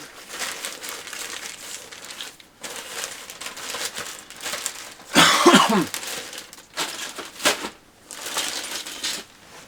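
Plastic packaging crinkling and rustling as model-kit parts are handled, with a louder burst of rustling about five seconds in.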